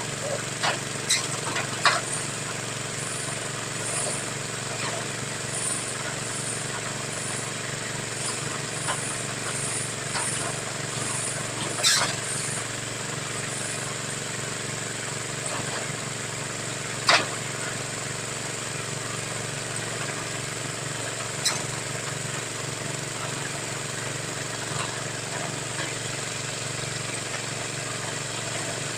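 Engine of a well-drilling machine running steadily, with a few sharp metallic knocks, the loudest about twelve and seventeen seconds in.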